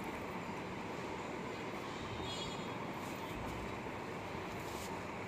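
Steady low hum of distant city traffic, with no distinct events.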